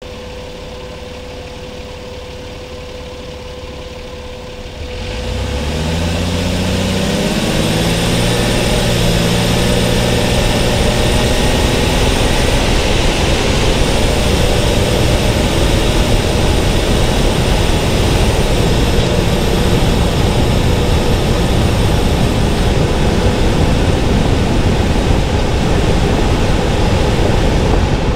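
Car idling with a steady tone, then about five seconds in pulling away and accelerating, the engine note rising for several seconds before settling into steady road and wind noise at cruising speed.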